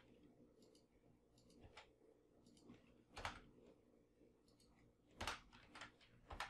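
Faint, irregular clicks of computer keyboard keys being typed, with a few louder key strikes about three seconds in and again near five seconds.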